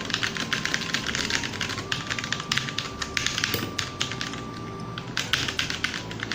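Typing on a Tsunami MK61 mechanical keyboard with brown switches and plastic OEM-profile keycaps: a fast, continuous clatter of key clicks, thinning briefly a little past the middle.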